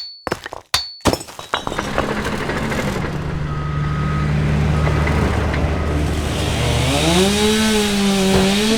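Construction machinery engine running steadily with a noisy mechanical clatter, after a few sharp clicks about a second in. In the last two seconds its pitch rises and wavers as it revs.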